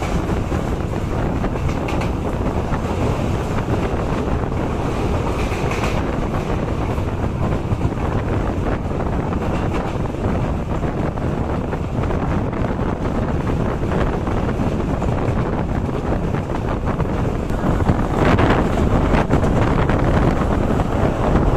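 Ananthapuri Express passenger train running at speed, heard from an open coach doorway. The wheels rumble steadily on the rails and wind buffets the microphone. It grows a little louder about three-quarters of the way through.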